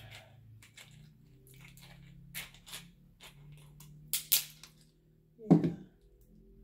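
Crab shell cracking and snapping as claws are broken apart by hand: scattered sharp cracks, the loudest a pair about four seconds in, then a duller knock about a second and a half later.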